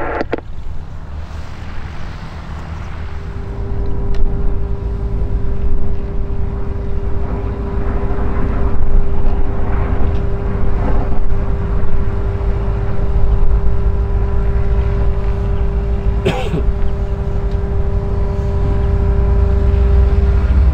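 Cessna Caravan's PT6A turboprop being cranked by its starter with the propeller not yet turning. A steady whine comes in about three seconds in over a low rumble that grows louder, and the whine cuts off near the end.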